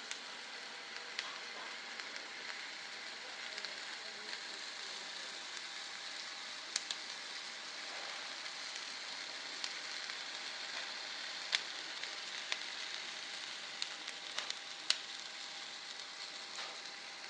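Steady sizzling hiss with scattered small pops and crackles: hot rice and stew sizzling in a freshly heated native serving pot.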